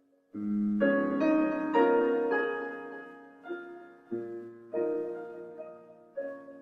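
Background piano music: slow notes and chords struck one after another, each ringing on and fading.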